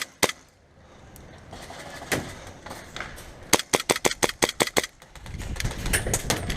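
Airsoft gun shots: a single shot near the start, another about two seconds in, then a rapid burst of about ten shots at roughly eight a second. A low rumbling noise comes in after the burst.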